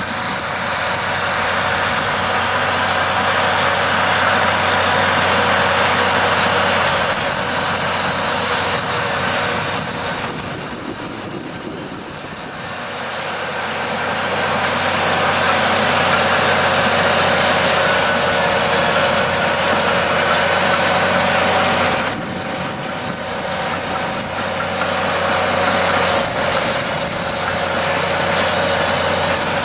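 Caterpillar D6C crawler dozer's diesel engine running under load while it pushes dirt with its blade. The steady drone eases off for a moment about ten seconds in and again a little past twenty seconds.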